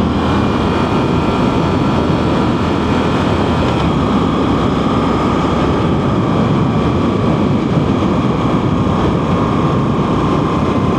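Motorcycle running steadily at road speed on the open road, its engine sound mixed into a continuous rush of wind and road noise.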